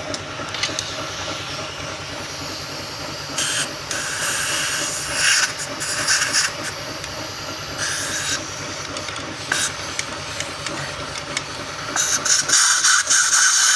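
Compressed air from a workshop airline blow gun, blowing debris and crud off the engine sump: several short hissing blasts, then a longer blast near the end, over a steady low hum.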